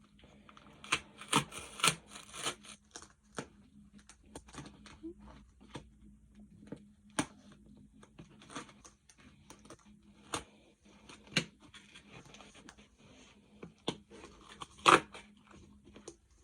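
Gloved hands tearing open and handling a delivery package: irregular tearing and crinkling with sharp clicks, loudest about a second in and again near the end.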